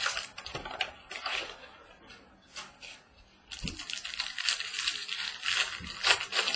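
A 2015 Topps Museum Collection baseball card pack being opened by hand, its wrapper crinkling and tearing. A few short rips come in the first second or so, then steady crinkling from about three and a half seconds in.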